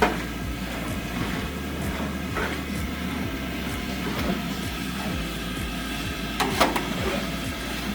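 Pork pieces frying in lard in a large pot, a steady sizzle and bubbling, with three sharp knocks: at the start, about two and a half seconds in, and near six and a half seconds.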